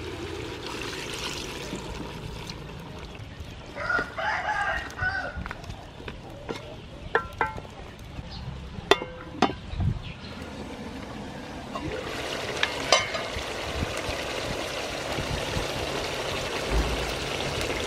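A rooster crowing about four seconds in, over the steady hiss of a pot of chicken curry cooking over a charcoal stove. A few sharp clicks come near the middle, and the hiss grows louder toward the end.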